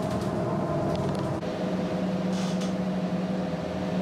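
Steady vehicle engine hum with a few held low tones.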